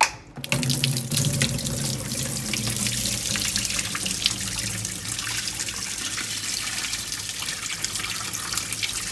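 Water pouring in a steady stream out of a dehumidifier's full collection tank, after a short knock at the start.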